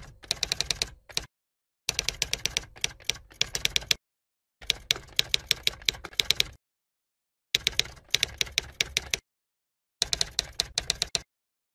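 Typing sound effect: rapid key clicks in bursts of one to two seconds, with short silent pauses between them, keeping time with on-screen text being typed out.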